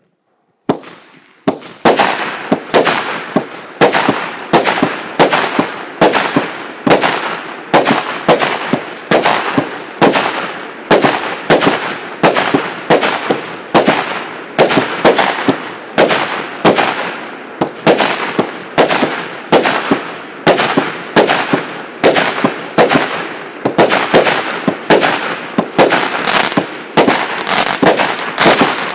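A 120-shot, 0.8-inch consumer fireworks cake firing shot after shot. After a first bang a little under a second in, the sharp reports come about twice a second, each dying away quickly.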